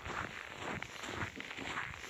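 Footsteps of a person walking, a run of uneven crunching steps.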